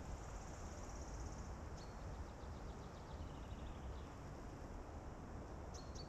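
Small songbirds singing: a rapid high trill, then a short sharp note just under two seconds in and a slower, lower trill, with another sharp note near the end, over a steady faint hiss.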